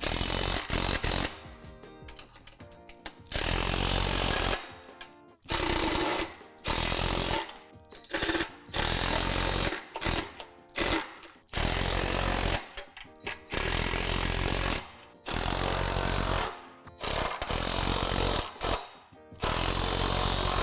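Cordless power driver driving bolts tight into a steel bracket, in many short runs of about a second each with brief pauses between them.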